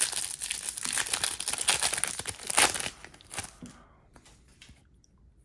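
Foil trading-card pack wrapper being crinkled and torn: a quick, dense run of crackles for about three seconds, loudest just before it dies down, then only a few faint handling ticks.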